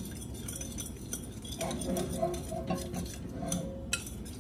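A whisk clicking and scraping quickly against a small glass mixing bowl, beating together a thin oil-and-lime-juice marinade.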